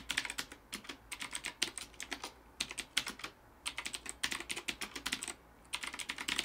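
Gametech Titan mechanical keyboard with blue (clicky) switches being typed on: quick runs of sharp, crisp key clicks in bursts with short pauses between them.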